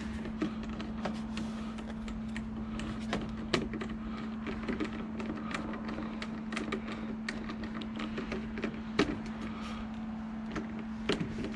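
Scattered small clicks and taps of a hand tool working a thread-locked screw into a small collar on a model airplane's tail, over a steady low hum.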